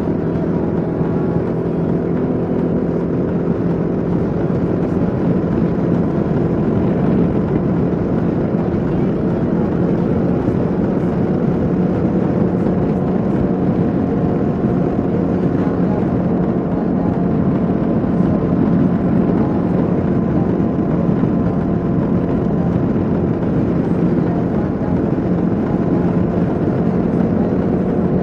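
Kawasaki KLR 650's single-cylinder engine running at a steady cruising speed, with wind rushing over the microphone.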